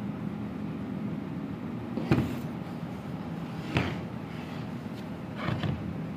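Metal starter motors being handled and set down on a wooden floor: a knock about two seconds in, another a couple of seconds later, and a double knock near the end, over a steady low hum.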